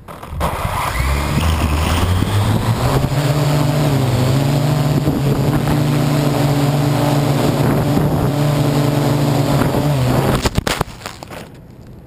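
Parrot AR.Drone quadcopter's four electric motors and propellers spinning up with a rising whine at takeoff, then running steadily in flight, heard from on board the drone. Near the end a few sharp knocks as it crashes into brush, and the motors cut out.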